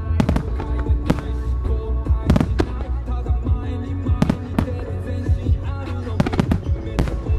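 Aerial firework shells of a wide starmine bursting in quick succession, a dozen or so sharp bangs at irregular intervals, over loud music with heavy bass.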